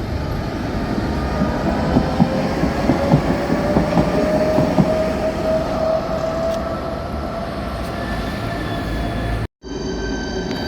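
A rail vehicle passing close by, its wheels knocking over rail joints for a few seconds while a whine slowly rises in pitch. About nine and a half seconds in, the sound cuts off abruptly and is replaced by a different steady hum with several held tones.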